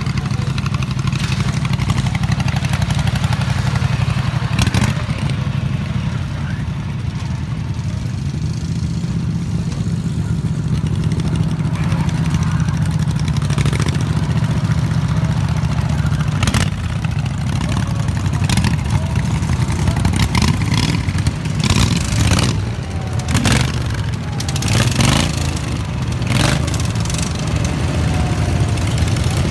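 Small engines of racing ride-on lawn tractors running steadily, with a low even hum and a scatter of sharp knocks and clatters in the second half.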